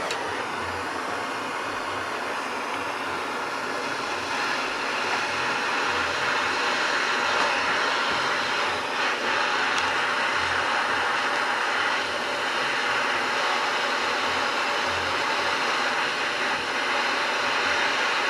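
Handheld gas soldering torch burning steadily, its flame hissing as it heats a copper pipe joint and valve.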